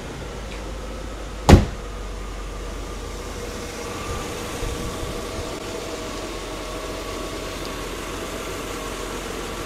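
Mercedes-Benz 380SL's K-Jetronic (Bosch C.I.S.) fuel-injected 3.8-litre V8 idling smoothly and steadily, a sign of a well-running fuel injection system. A single sharp, loud thump comes about one and a half seconds in.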